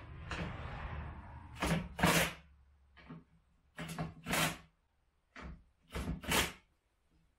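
Kobalt 24-volt brushless cordless impact driver running briefly, then a run of short bursts as it drives bolts into a cart's steel handle frame.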